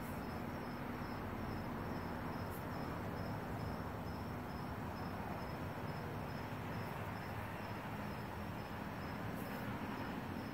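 Insect chirping: thin, high, evenly spaced chirps repeating steadily, over a low, even hum and hiss.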